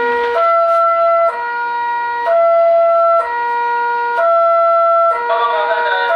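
Railway level-crossing warning alarm sounding a loud electronic two-tone signal, alternating high and low about once a second. A wavering pitched sound briefly overlaps it near the end.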